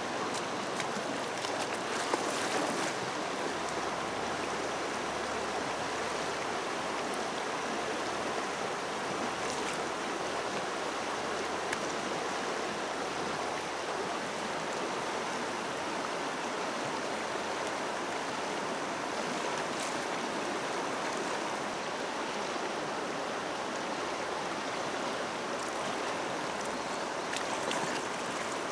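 Swollen, fast-flowing muddy river rushing steadily, with a few brief splashes.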